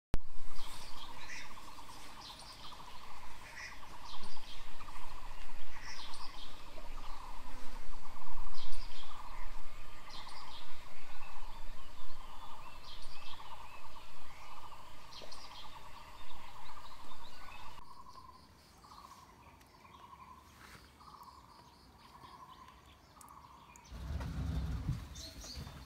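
Birds chirping and calling over a steady trill. About two-thirds of the way in the sound turns quieter, with only scattered notes. A low rumble comes in near the end.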